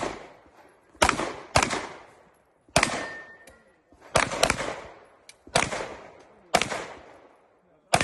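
Single gunshots from a competition shooter's firearm, fired at an uneven pace, roughly one every second with a quicker pair now and then, each shot trailing off in echo.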